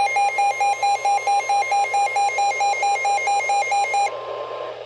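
A weather radio receiver's alert alarm beeps rapidly, about four beeps a second, over the steady 1050 Hz NOAA Weather Radio warning tone, signalling an incoming weather warning. The beeping stops about four seconds in, and the warning tone cuts off shortly after, leaving radio hiss.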